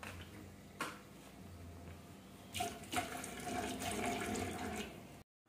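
Water running for about two seconds in the second half, after a single sharp click about a second in.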